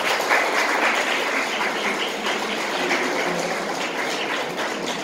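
Audience applause: dense, steady clapping that eases off slightly near the end.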